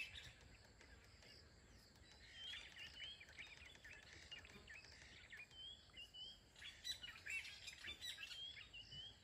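Drongos calling: faint, repeated chirps and short upward-swept whistles.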